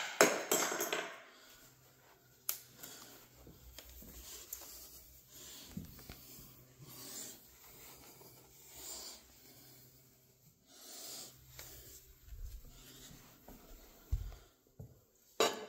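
Rustling, rubbing handling noise of a phone moved about against hair and clothing, with a sharp knock right at the start, a few soft thumps, and another knock near the end.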